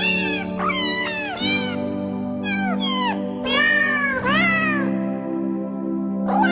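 Cat meows set to a music backing: a string of short meows, each rising and then falling in pitch, over steady held notes, with a pause of about a second and a half near the end before the meows start again.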